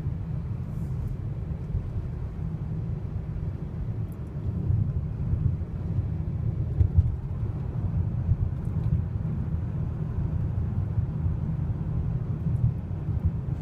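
Steady low rumble of a car being driven slowly, heard from inside the cabin.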